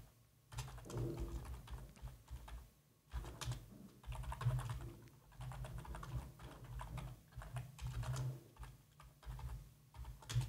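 Typing on a computer keyboard: a run of irregular keystrokes, with a short pause about three seconds in.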